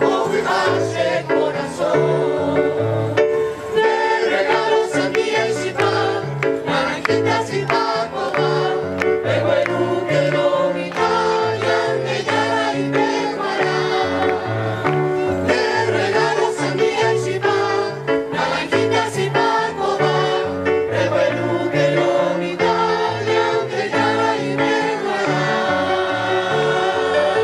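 A mixed choir of children and adults singing together over an instrumental accompaniment with a moving bass line.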